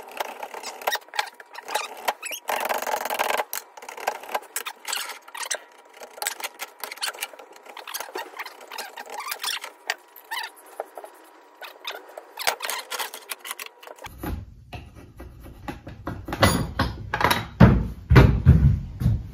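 Draw knife shaving a hickory axe handle down to fit the axe head: a run of quick, irregular scraping strokes of the blade across the wood. About fourteen seconds in the sound changes, and near the end there are several louder, heavier thumps.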